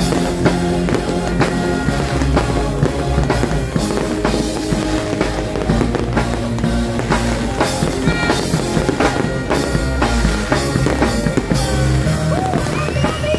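Fireworks shells bursting and crackling in quick irregular bangs, mixed with loud music with a heavy drum beat.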